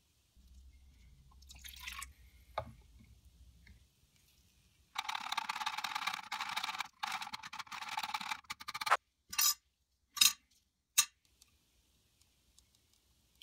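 Wire whisk beating a runny flour, vinegar and salt paste in a plastic tub: about four seconds of busy scraping and clatter, followed by three short separate knocks.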